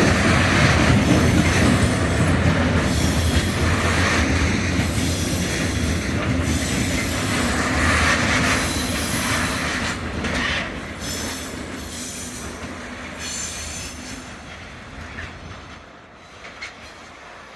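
Railway wagons rolling over the tracks of a marshalling yard, with a low rumble and squealing wheels, gradually fading away as they move off.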